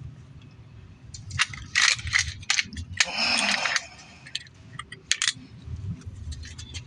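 Metal parts and tools clinking and rattling as brake hardware is handled and fitted back together, with a short scrape of metal on metal about three seconds in.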